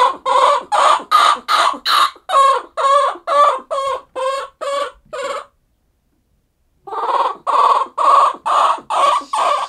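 Orphaned infant vervet monkey crying: short distress calls repeated about three a second, pausing once for about a second and a half, then going on. It is an orphan's crying for its lost mother.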